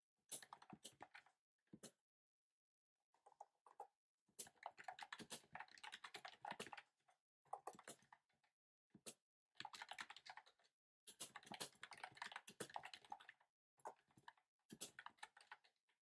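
Typing on a typewriter-style mechanical keyboard with round keycaps: quick runs of key clicks in bursts, broken by short pauses of a second or so.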